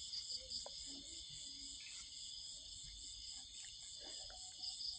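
Crickets calling at night, a steady high trill of rapid even pulses, with a few faint clicks nearby.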